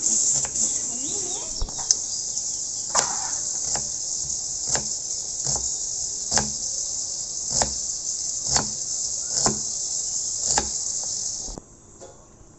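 Kitchen knife cutting a red onion on a wooden chopping board, a sharp knock roughly once a second. Behind it, a steady high insect chirring that cuts off suddenly near the end.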